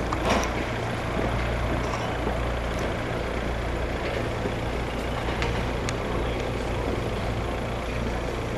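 Road vehicle engines idling with a steady low hum, over general traffic noise.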